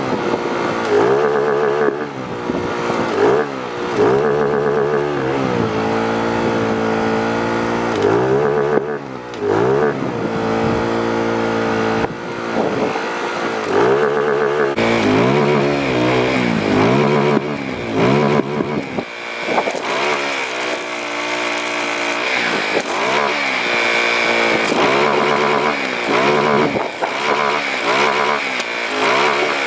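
An engine running and revving up and down over and over, its pitch rising and falling every second or two. About halfway through, a steady high whine joins it.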